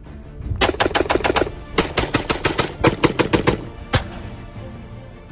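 Rapid gunfire: a quick burst of about eight shots, a short pause, a longer burst of about fourteen shots, then one last single shot, over background music.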